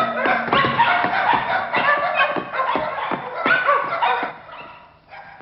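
Several dogs barking and yelping all at once, a dense overlapping racket that dies away a little after four seconds in.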